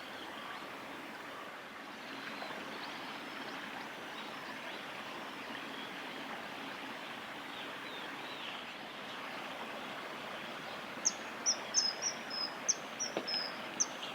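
River water flowing steadily, with a run of about ten short, sharp, high-pitched whistled calls from a common kingfisher near the end.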